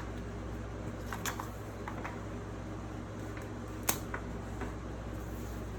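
Charging cables and their packaging being handled: a few small clicks and rustles, the sharpest about four seconds in, over a steady low hum.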